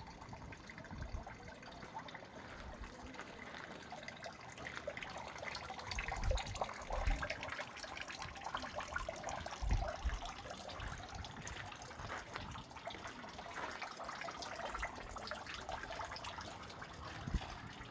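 Small garden fountain splashing and trickling steadily, with a few dull low thumps at intervals, loudest about six to seven seconds in and near ten seconds.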